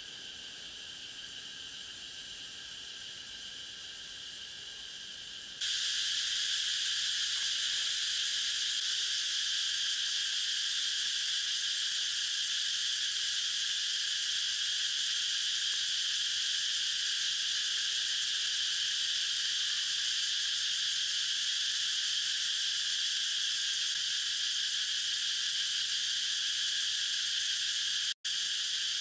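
Steady, high-pitched chorus of insects droning without a break. It jumps suddenly louder about six seconds in and cuts out for an instant near the end.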